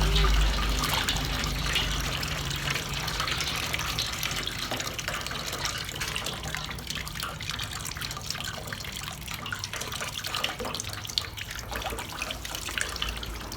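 Tap water running and splashing into a tub, with many small splashes and drips; it is louder for the first two seconds, then runs on steadily.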